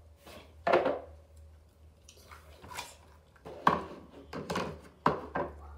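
Plastic cupcake-shaped slime container being opened and handled: about six sharp plastic clicks and knocks, the loudest about a second in and just before four seconds.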